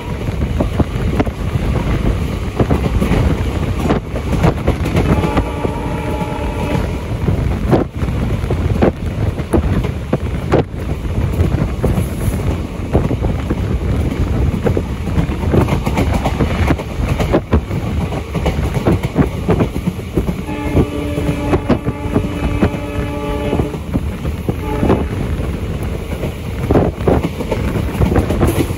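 Passenger train running, heard from aboard beside an open window or door: a steady rumble and wind with the clack of wheels over rail joints. The locomotive's horn sounds briefly about five seconds in and again for about three seconds a little past twenty seconds.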